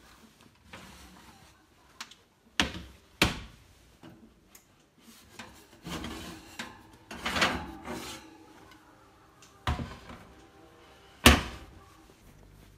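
Metal baking pans of cookies being pulled out of an oven, scraping along the wire racks, with a few sharp clanks. The loudest clank comes near the end.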